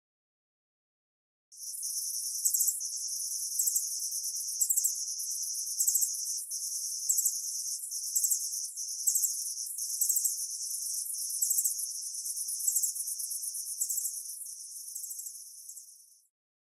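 Crickets chirping: a high, fast-pulsed trill in phrases about a second long, with louder chirps standing out roughly once a second. It starts about a second and a half in and stops shortly before the end.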